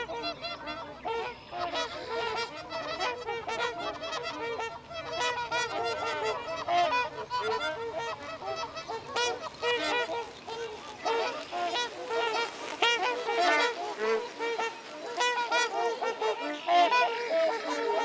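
A flock of geese honking, with many short calls overlapping throughout.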